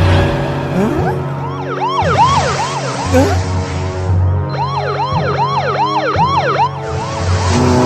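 Cartoon police sirens wailing in quick rising-and-falling sweeps, about two a second, in two runs, over background music.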